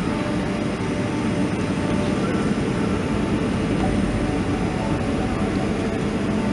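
Steady cabin noise inside a Boeing 737-400 descending on approach to land: the hum of its CFM56-3 engines and the rush of air over the fuselage, heard from a window seat.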